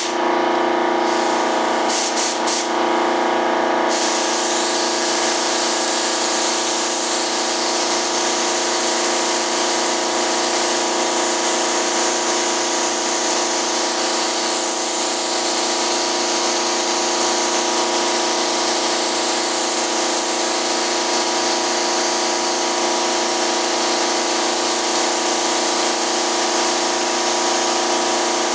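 Compressed-air spray gun spraying PVA mold release (Partall film) onto a wing mold: a hiss that comes in a few short bursts at first, then runs continuously from about four seconds in. A steady air-compressor hum runs underneath.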